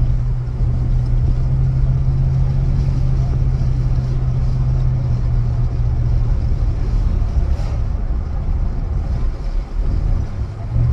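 Inside the cab of a moving pickup truck: a steady low drone of engine and road rumble. The drone fades about two-thirds of the way through and comes back near the end.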